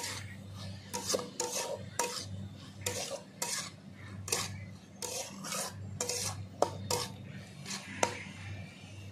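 A long metal spatula scraping and stirring red amaranth greens and poppy seeds around a metal kadai, in irregular strokes about one or two a second, with a few sharp clinks of metal on metal.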